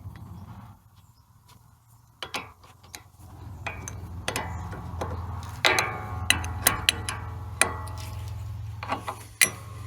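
Hand work on a sawmill's saw-guide assembly: a run of sharp metallic clicks and knocks, sparse at first and then louder and more frequent from about two seconds in, over a steady low hum.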